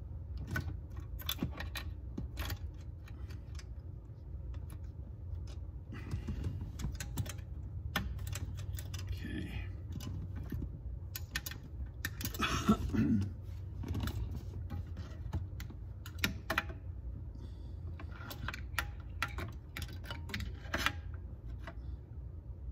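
Irregular small plastic clicks and rattles from wiring connectors and bulb sockets being handled and plugged into the back of a C3 Corvette's instrument cluster, over a steady low hum.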